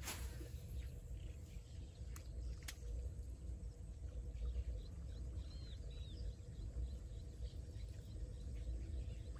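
Outdoor ambience by a pond: a steady low wind rumble on the microphone, with small birds chirping faintly about halfway through. A sharp swish right at the start as a fishing rod is cast, then two light clicks a couple of seconds in.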